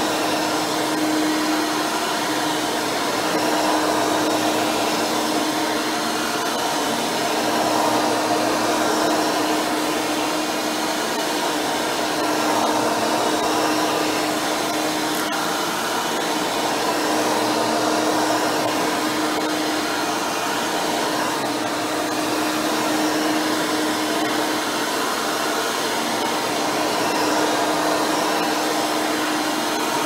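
Hoover Turbopower 4000 upright vacuum, fitted with a CWP H701 soft-nylon brush roll and a retrofit 20-blade fan on its 7-amp motor, running on carpet. It gives a steady motor hum over a rush of air, its level swelling and easing every few seconds.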